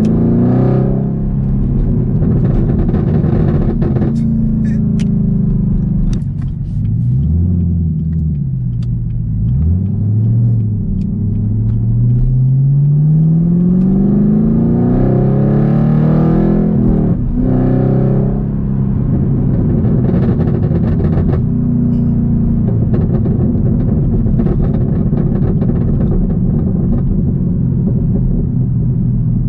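Supercharged 6.2-litre V8 of a Camaro ZL1 through an H-pipe catback exhaust, heard from inside the cabin, revving up and down through the gears with the pitch climbing and dropping at each shift and lift-off. A few sharp pops come from the exhaust on deceleration, and the engine settles into a steadier drone in the second half.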